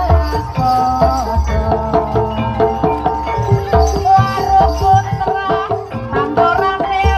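Javanese gamelan music playing the accompaniment for an ebeg (jathilan) horse dance: pitched melody lines over a steady run of drum beats.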